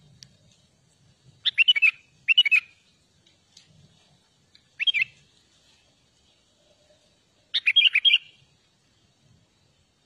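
Sooty-headed bulbul singing: four short, quick warbled phrases, two close together, then one near the middle and one more later.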